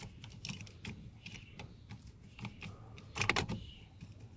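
Small clicks and rattles of a VY Commodore's ignition lock barrel and key being pushed back into the switch and tried, with a cluster of louder clicks about three seconds in.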